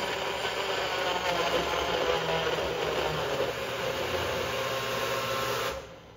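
Personal cup blender running steadily as it blends a banana smoothie, then cutting off near the end.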